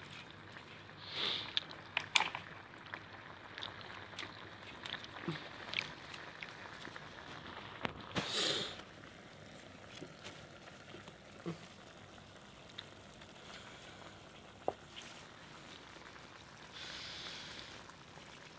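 Vegetables sizzling faintly in a steel kadai over a wood fire, with scattered sharp clicks and knocks and a few short hisses.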